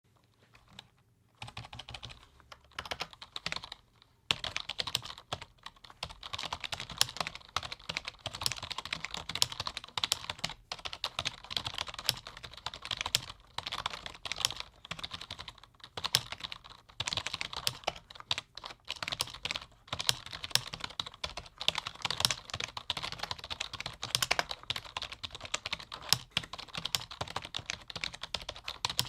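Typing on a low-noise computer keyboard: fast, dense key clicks that start about a second in, with a short pause near four seconds.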